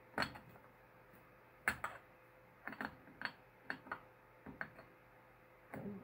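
A string of irregular, sharp metallic clicks and clinks as a metal end bar is handled and fitted against the terminals of cylindrical lithium titanate battery cells.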